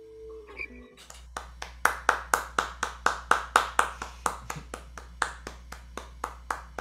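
An acoustic guitar's last chord dies away, then one person claps steadily, about four claps a second, heard over a video call.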